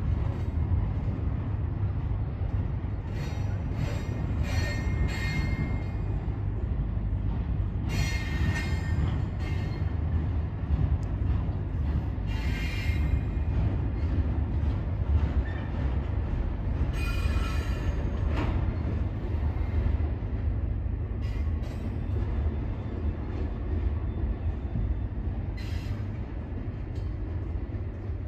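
Double-stack intermodal freight cars rolling slowly over a steel girder railway bridge: a steady low rumble of the cars and trucks, broken every few seconds by short high-pitched squeals from the wheels.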